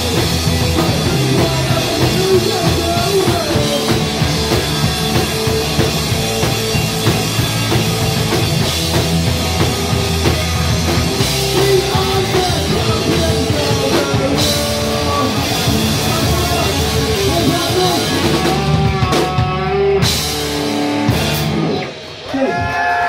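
Live punk rock band playing loud: electric guitar, bass guitar, drum kit and sung vocals. The song stops about 22 seconds in, with a brief drop in level.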